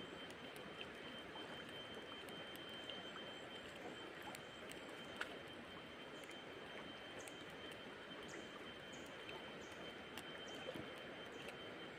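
Steady rush of a river flowing, with a thin high tone held throughout and a few faint bird chirps in the second half.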